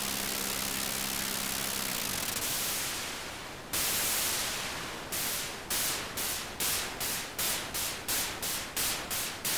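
Electronic static-like white noise with a low steady hum that stops about two seconds in, after which the noise thins and fades. A sudden burst of noise comes about four seconds in, then noise bursts repeat about twice a second, each one quickly dying away.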